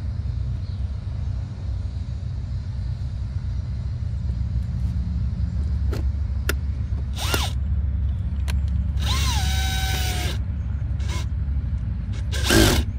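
Scattered clicks and short scraping squeaks of a screw being worked into the plastic seat side trim, with a louder scrape near the end, over a steady low rumble.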